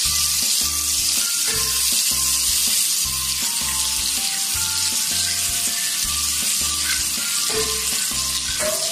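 Butter and olive oil sizzling in a hot pan as they are stirred with a spatula, a steady hiss. Background music with a steady beat plays under it.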